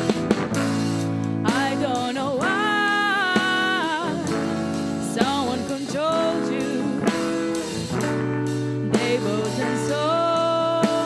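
Live band music: a woman sings in phrases over a clean electric guitar played through a small amplifier. A snare drum played with sticks keeps time with regular sharp hits. The singing starts about a second and a half in and comes back twice, with short instrumental gaps between the phrases.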